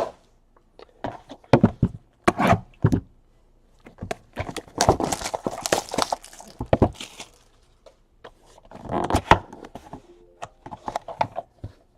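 Trading cards and plastic card holders being handled on a table: a few sharp clicks and taps, then a longer stretch of rustling and sliding, then more taps and rustling near the end.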